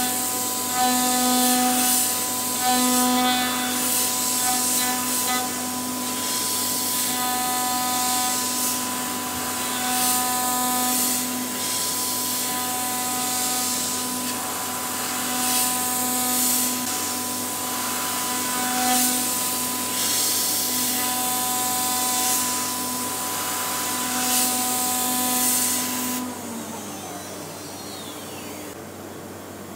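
CNC router spindle milling aluminium: a steady high spindle whine, with a harsh cutting noise that swells and fades every second or two as the cutter passes back and forth across the part. About 26 s in, the whine slides down in pitch and the sound drops away as the spindle spins down at the end of the cut.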